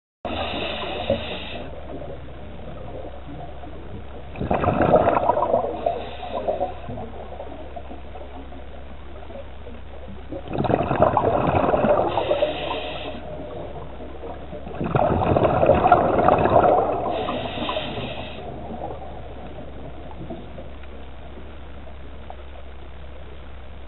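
Scuba diver's regulator underwater: three bursts of exhaled bubbles, each two to three seconds long and a few seconds apart, over a steady low hum.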